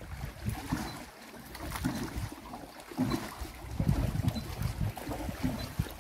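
Wind buffeting the microphone in uneven gusts, with small lake waves lapping at the stony shore and around a wooden jetty.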